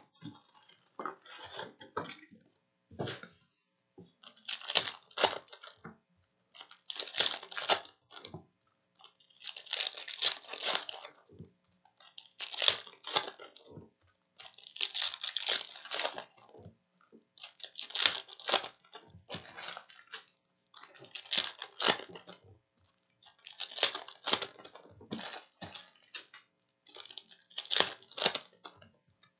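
Plastic wrappers of Prizm trading card packs crinkling and tearing as the packs are ripped open one after another, in crackly bursts every two to three seconds.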